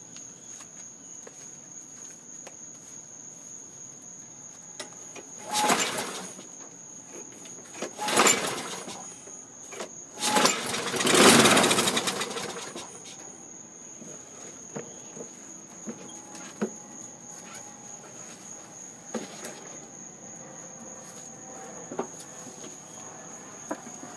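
Walk-behind lawn mower's small engine being pull-started three times, about two and a half seconds apart; the third pull is the loudest and runs on for about two seconds before dying away. Crickets sing steadily throughout.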